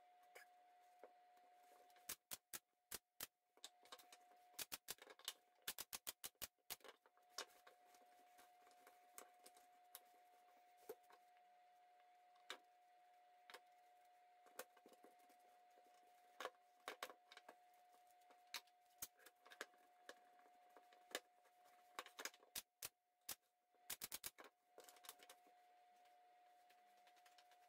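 Faint, scattered clicks and taps of small cedar box parts and dividers being handled and fitted together on a wooden bench. Near the end there is a quick run of clicks as a one-handed bar clamp is squeezed tight across the box. A faint steady tone runs underneath.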